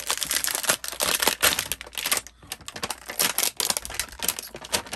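Clear plastic packaging wrap crinkling and rustling as hands pull it away from a toy package, a dense run of sharp, irregular crackles.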